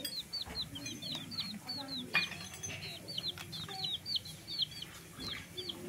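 Domestic chicks peeping over and over: short, high calls that each slide down in pitch, several a second, with a sharp tap about two seconds in.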